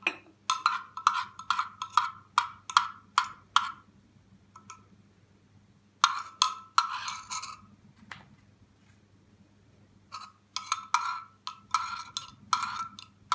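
A spoon stirring a mixture in a small cezve pot, clinking against the pot's sides about three times a second, in three runs with short pauses between.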